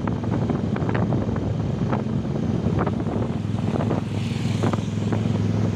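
Honda Tiger single-cylinder four-stroke motorcycle engine running at a steady pitch while riding, with wind noise on the microphone.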